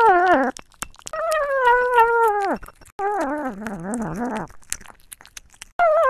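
A dog making long, wavering howling whines one after another with short gaps between them; the middle call sinks lower before it breaks off.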